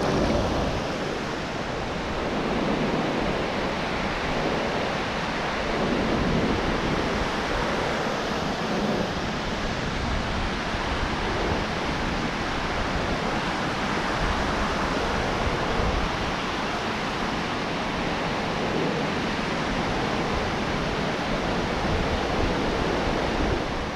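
Ocean surf washing onto the beach, with wind on the microphone: a steady rush of noise.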